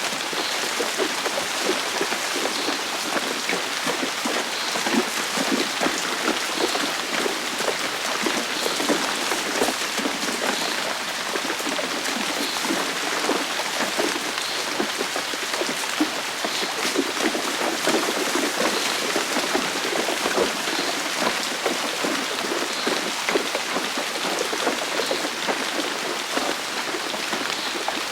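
Steady rain falling, a dense patter of drops on hard surfaces.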